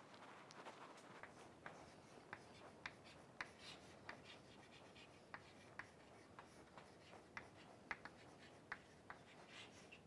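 Chalk writing on a blackboard: faint, irregular taps and light scratches as the words are written out.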